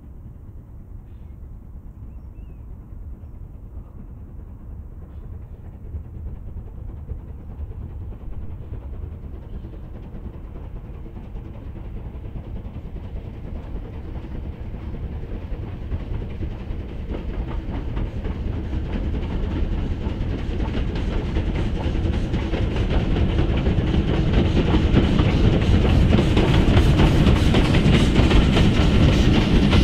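Bulleid West Country class three-cylinder steam locomotive 34027 'Taw Valley' working a train, its rapid exhaust beats growing steadily louder as it approaches and comes alongside.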